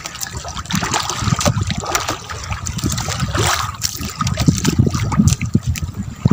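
Seawater splashing and trickling in a quick, irregular run of small splashes.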